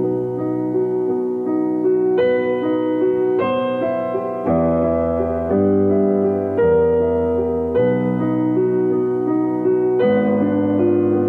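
Piano music, a steady run of chords with a new bass note about once a second.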